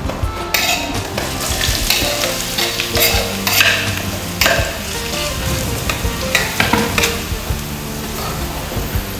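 Chopped food scraped off a wooden cutting board into a pan of hot oil, sizzling in repeated short bursts, mixed with the scrape and knock of the board against the pan.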